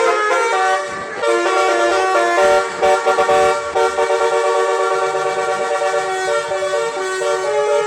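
A bus's 'telolet' musical air horns playing a tune: several horn notes sounding together and stepping from pitch to pitch, with a run of quick short notes around the middle and longer held notes after.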